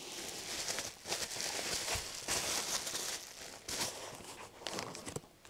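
Bubble wrap crinkling and rustling as gloved hands handle and fold it, with many small crackles.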